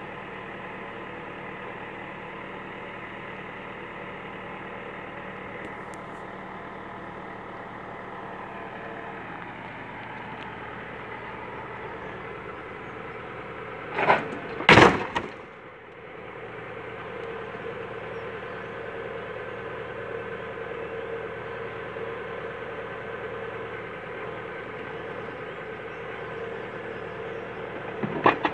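Iveco truck's engine running steadily to power its hydraulic loader crane, with a steady hydraulic whine. Two loud bangs come about halfway through, and near the end a quick series of sharp knocks as the crane's grapple comes down on a wrecked car's roof.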